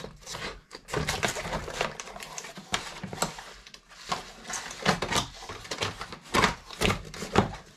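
Cardboard packaging tray with a plastic toy wheel loader strapped to it being handled: irregular rustling, scraping and sharp little knocks of cardboard and plastic.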